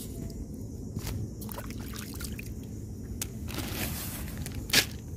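Wet sand and shallow water being scraped and stirred with a small hand tool while digging for clams: a few brief scrapes and a watery trickle, with one sharp, louder sound near the end.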